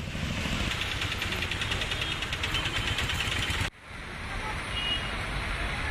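Street traffic on a wet road: vehicle engines running with road noise. The sound cuts out for a moment a little past halfway, then carries on.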